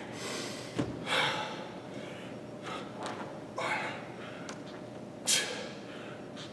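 A man breathing hard while doing dumbbell split squats: about five short, forceful breaths in and out, roughly one per rep, the loudest near the end.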